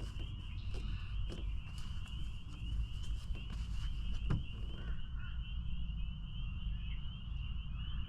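A chorus of spring peepers: many short, rising peeps overlap into a steady high chorus. Beneath it runs a steady low rumble, with a few light clicks in the first half.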